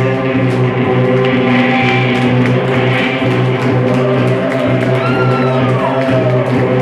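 Live noise-psychedelic band music: loud sustained droning tones over a fast, even ticking beat, with a pitch that slides downward about five seconds in.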